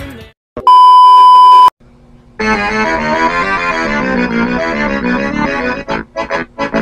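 Background music fades out, then a loud electronic beep holds one high pitch for about a second. After a short gap, keyboard music starts and turns into short, choppy chords near the end.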